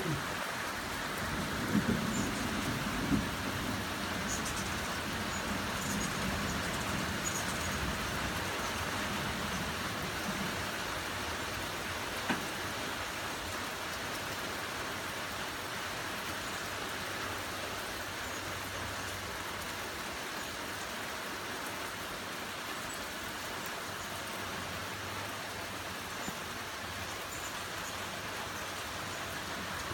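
Steady heavy rain falling, an even hiss throughout, with low rumbling during roughly the first ten seconds.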